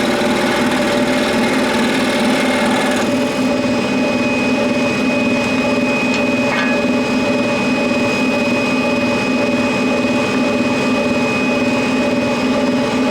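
Scroll saw running steadily with a constant hum. About three seconds in, the high hiss drops off and a thin steady whine comes in.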